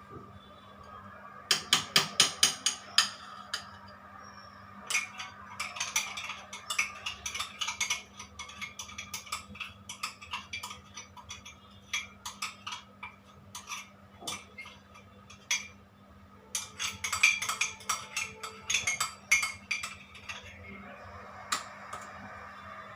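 Cake batter being beaten by hand in a bowl: a mixing utensil clicking against the side of the bowl in fast runs, stopping and starting several times.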